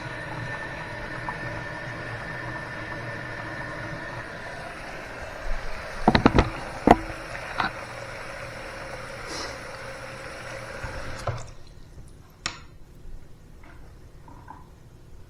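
Water running steadily from a bathroom faucet into the sink, with a few sharp knocks about six to seven seconds in. The flow shuts off near the end, leaving scattered drips.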